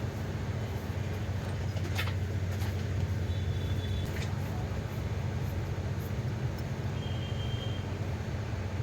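Steady low mechanical hum, with a few light clicks and two short, faint high tones.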